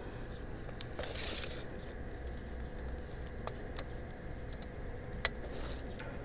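Handling noises as a yellow tape measure is pulled out and laid along a fish on dry reed stalks: soft rustling and crackling of the stalks, with a short rustle about a second in and a few sharp clicks, the loudest about five seconds in.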